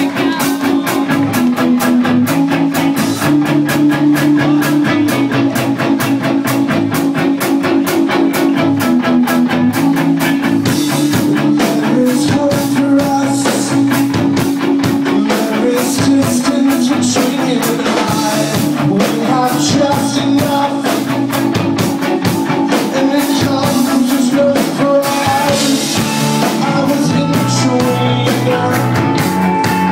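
Rock band playing live at full volume: electric guitar, bass and drum kit with a steady beat. A male lead voice sings over it for much of the stretch.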